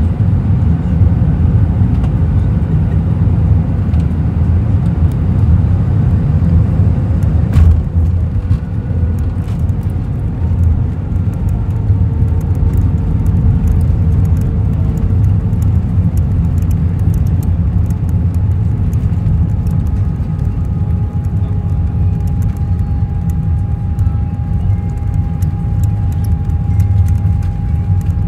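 Cabin noise of an Airbus A321 rolling out on the runway after landing, its ground spoilers raised: a loud steady rumble from the wheels and engines. A single sharp knock comes about seven and a half seconds in, and a faint steady whine joins past the midpoint.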